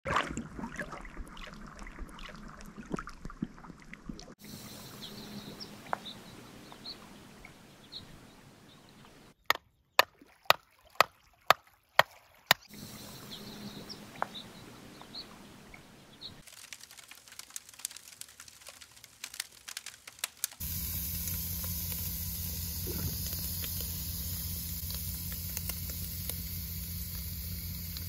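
Small waves lapping on a rocky lakeshore. A run of about seven sharp clicks a third of the way in, and more clicking later. Then a steady hiss with a low hum takes over for the last third.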